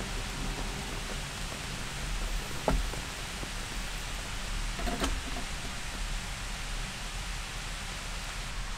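A ceramic clay pot knocks twice against the metal grill of a small tabletop stove as it is handled and set down on the flame: a sharper knock about a third of the way in, a lighter one a little past halfway. A steady hiss runs underneath.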